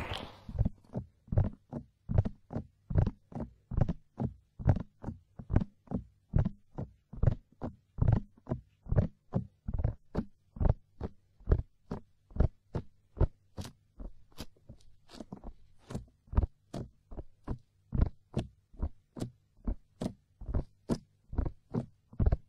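Hands patting the silicone ears of a binaural dummy-ear microphone in a steady rhythm: deep, soft thumps, about two to three a second.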